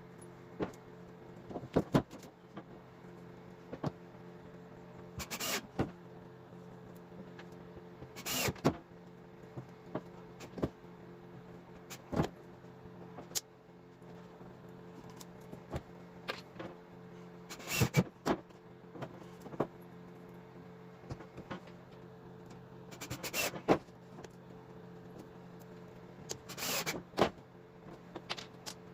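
Cordless drill/driver running screws into boat floorboards in about five short bursts, each half a second to a second long, with clicks and knocks of handling in between.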